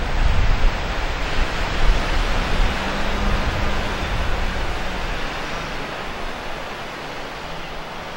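Outdoor roar of wind and surf, with low gusts buffeting the microphone in the first few seconds that gradually ease off. A faint engine hum sits under it about midway.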